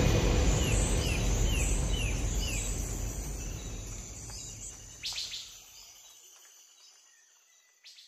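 A bird chirping repeatedly, a run of short falling chirps, over a steady background wash that fades away to silence about six seconds in, with a couple of sharp clicks just before it dies out.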